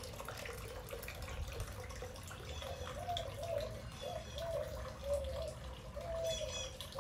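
Garden fountain water trickling and splashing softly.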